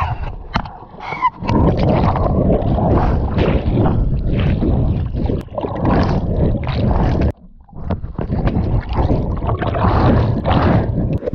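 Underwater rushing and bubbling of sea water around a submerged action camera as a man dives and swims down. The noise breaks off briefly about seven seconds in, then picks up again.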